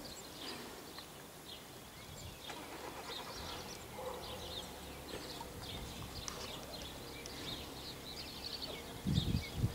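Songbirds chirping over a faint low hum from an approaching diesel multiple unit, with a steady tone joining about four seconds in. A louder low rumble comes near the end.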